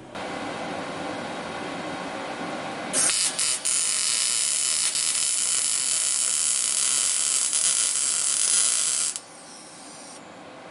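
MIG welding arc from a PrimeWeld MIG 180 running a weaving bead on steel tube. A lower, steady whir comes first. About three seconds in the arc strikes and sizzles with an even crackle for about six seconds, then cuts off sharply when the trigger is released.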